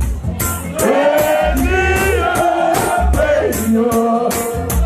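Reggae song played loud over a sound system: a singer over deep bass and a steady beat.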